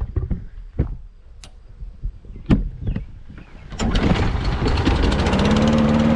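Craftsman 21-inch push mower engine being pull-started: a few scattered knocks, then the engine catches about four seconds in and settles into a steady run.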